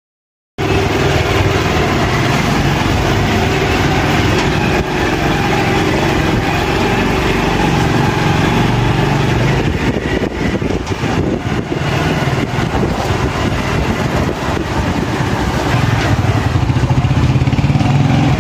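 Motorcycle engine running steadily, heard from the rider's seat.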